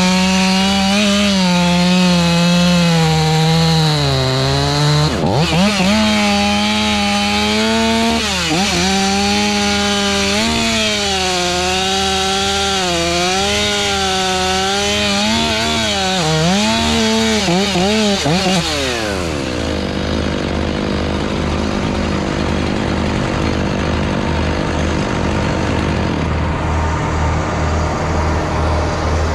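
Two-stroke chainsaw running at high revs and cutting black locust; its pitch dips several times as the chain loads in the hard wood. About two-thirds of the way through, the saw's pitch falls away, leaving a steadier, lower engine rumble from machinery.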